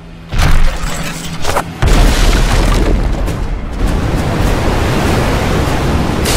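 Cinematic boom sound effects laid over dramatic film music: a heavy hit about a third of a second in, a shorter one about a second and a half in, then a sustained deep rumbling blast.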